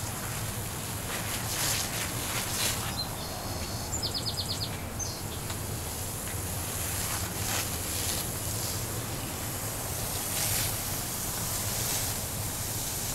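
Garden outdoor ambience: a steady low hum and hiss with a few passing gusts of higher hiss, and about four seconds in a bird's short, fast trill of about eight high notes.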